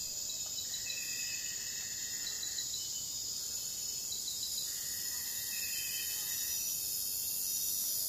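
Insects chirring steadily in a high-pitched chorus, with a lower, even tone joining twice for about two seconds each.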